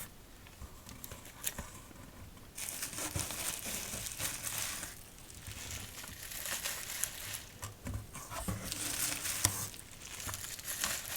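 Crinkly packaging rustling and crumpling as it is opened by hand and the decks of playing cards inside are taken out. It starts about two and a half seconds in, with a few light clicks mixed in.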